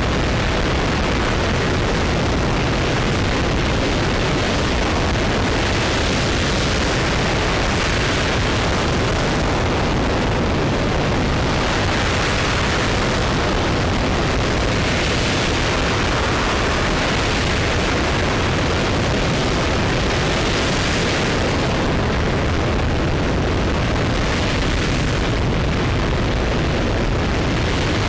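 RS-25 liquid-hydrogen rocket engine firing in a hot-fire test: a loud, steady, unbroken rumble with hiss on top, the hiss swelling and fading every few seconds.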